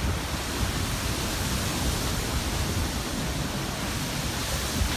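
Steady rush of wind and ocean surf with a low rumble underneath.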